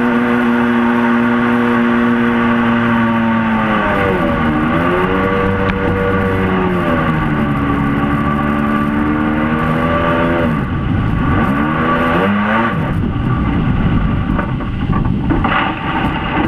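Mini jet boat's engine running hard at a steady high pitch. It is eased off and opened back up twice, the pitch sagging and climbing again each time. Near the end the engine note falls away, leaving the rush of water and wind as the boat runs over shallows.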